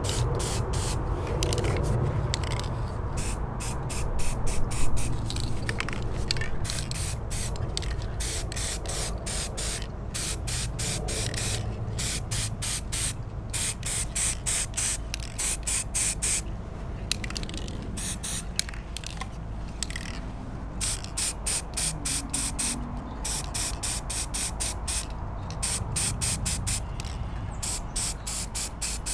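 Aerosol spray can of gloss black paint hissing in many short bursts, a few a second, as the nozzle is pressed and released in quick passes.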